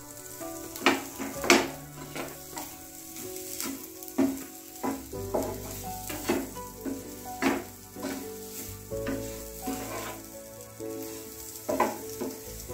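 Wooden spatula stirring and breaking up boiled potato pieces in spice masala in a hot nonstick grill pan. Irregular knocks and scrapes of the spatula against the pan come over a light sizzle.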